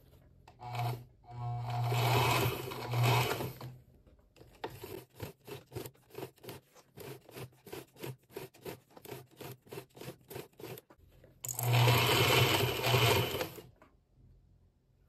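Industrial sewing machine stitching through four layers of leather. It runs at speed in two spells of two to three seconds, and between them stitches slowly in evenly spaced strokes, about four a second. The needle goes through the thick leather without trouble.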